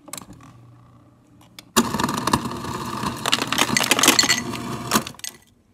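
Refrigerator door ice dispenser: a low hum, then about 1.7 seconds in, cubed ice clatters down the chute into a glass for about three seconds and stops abruptly.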